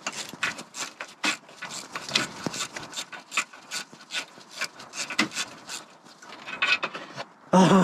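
Hand wrench working a nut off an exhaust manifold stud: quick, irregular metallic clicking and scraping, several clicks a second.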